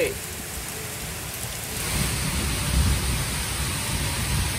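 Heavy rain pouring down in a thunderstorm, a steady hiss of rain on roofs, trees and road. About two seconds in the rain grows louder and a low rumble swells for a second or so.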